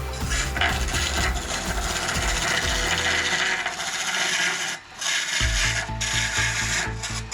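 Wood lathe turning, a chisel or gouge scraping and cutting the spinning wood in a steady rasping hiss, with a brief break about five seconds in.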